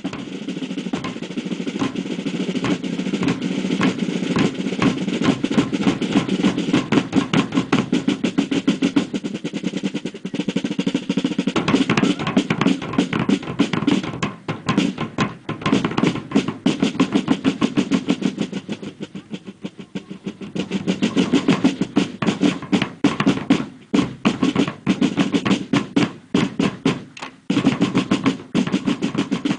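Field snare drums from a fife and drum corps, playing a rapid rolling cadence with a bass drum beneath, the loudness dipping briefly a few times before picking up again.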